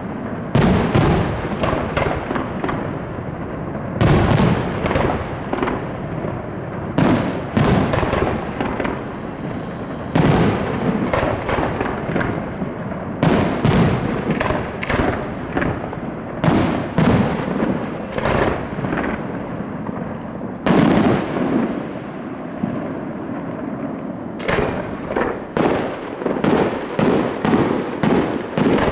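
Aerial fireworks shells bursting in quick succession, sharp bangs echoing one after another with irregular gaps, building to a fast rapid-fire volley near the end.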